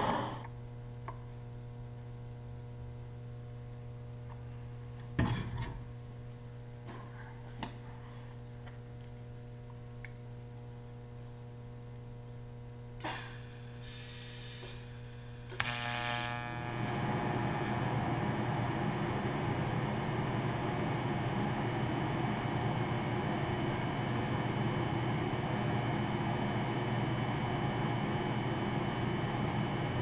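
A steady electrical hum with a few light clicks, then about halfway through a short sharp hiss as a TIG welding arc strikes, followed by the arc's steady buzzing hiss as a steel -6 AN fitting is TIG welded onto a power-steering hard line.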